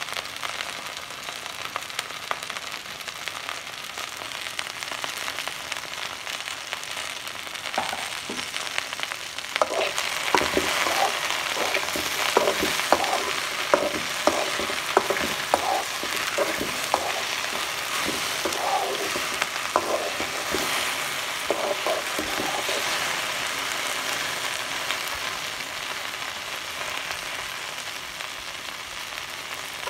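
Sliced okra frying in oil in a metal pan, a steady sizzle. About a third of the way in, a metal spoon stirs through it, scraping and knocking against the pan for several seconds, and then the sizzle carries on alone.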